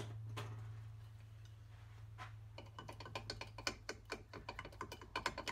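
A spanner working the lock nut on a motorcycle fork damper rod clamped in a bench vise. A few single metal clicks are followed, from about halfway, by a fast, uneven run of clicks. A steady low hum sits underneath.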